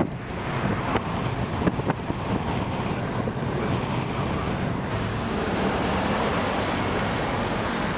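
Steady rushing of wind and road noise from a moving car, with wind buffeting the microphone and a few faint clicks in the first two seconds.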